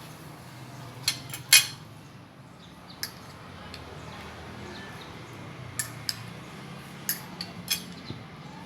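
Tableware clinking during a meal: about nine sharp, separate clinks of dishes and cutlery, the loudest about a second and a half in, over a low steady background hum.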